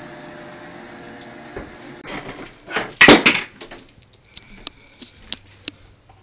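A loud wooden bump and rattle about three seconds in, followed by scattered light clicks and taps.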